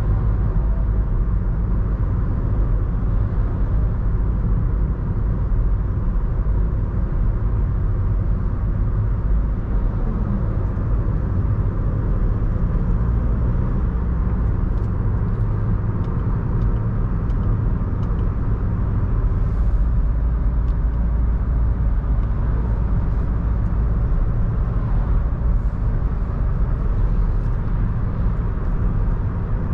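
Audi A1 1.6 TDI four-cylinder diesel hatchback cruising at steady expressway speed, heard from inside the cabin. A steady low rumble of engine, tyres and road, with no revving or gear changes.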